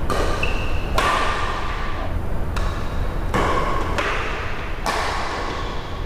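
Badminton rackets striking a shuttlecock in a rally: four sharp hits about one to one and a half seconds apart, each with a short ringing echo, over a steady low hum.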